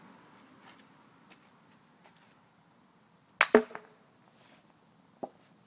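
Roque mallet striking a hard rubber roque ball: one sharp crack with a brief ring about three and a half seconds in, then a fainter click near the end.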